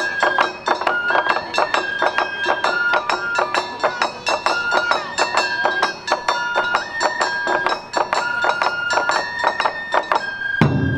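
Awa Odori festival band (narimono) playing: a shinobue bamboo flute holds stepping melody notes over fast, continuous clanking of the kane hand gong and plucked shamisen. A deep drum boom comes near the end.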